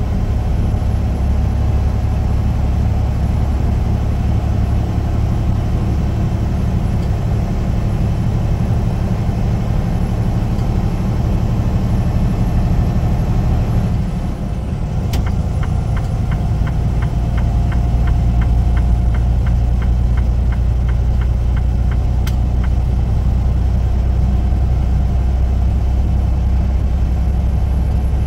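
Semi-truck driving down the highway: steady diesel engine and road rumble. About halfway through the engine note dips briefly, then comes back a little louder, and a regular ticking, about three to four ticks a second, runs for around six seconds.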